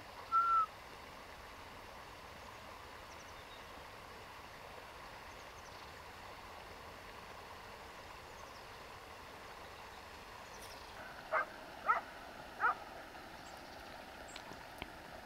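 Short animal calls over faint steady outdoor background: one brief whistle-like call just after the start, then three short calls in quick succession, spread over about a second and a half, near the end.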